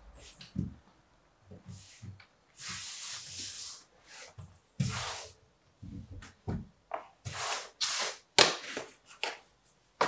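Pasted wallpaper being handled and smoothed onto the wall: a series of separate swishing rubs over the paper, with soft knocks and a few sharp clicks between them.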